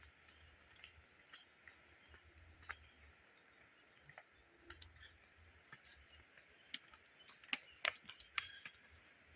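Quiet outdoor ambience with scattered faint clicks and ticks, busier about seven to eight and a half seconds in, and a few brief high chirps.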